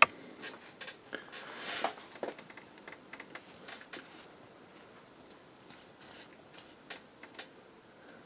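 Faint handling sounds: scattered small clicks and light rustling of fingers on a painting jar and a fine paintbrush, with a sharp click at the start and a brief rustle about two seconds in.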